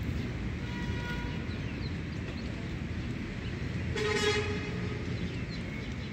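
A vehicle horn gives one short toot about four seconds in, over a steady low background rumble.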